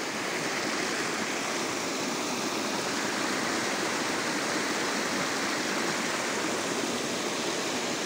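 Rain-swollen stream rushing over rock and splashing down a small cascade, a steady rush of water with no let-up.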